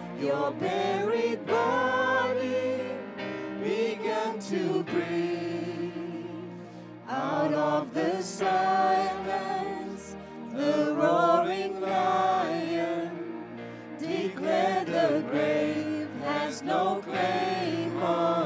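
Live worship band performing a song: male and female singers with keyboard and bass guitar accompaniment.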